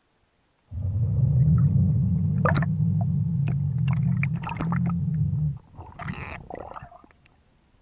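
Underwater rumble of water moving past the camera as the spearfisher swims upward, with scattered clicks. It stops abruptly about five and a half seconds in and gives way to a short hissing rush that fades out.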